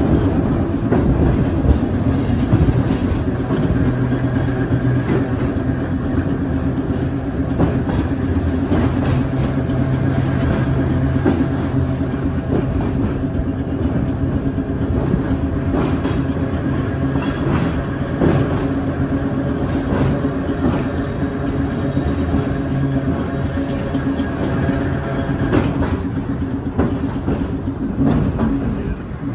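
Vintage electric Perley Thomas streetcar running along its tracks, heard from inside the car: a steady motor hum and rumble of the wheels on the rails, with a few brief high squeals from the wheels.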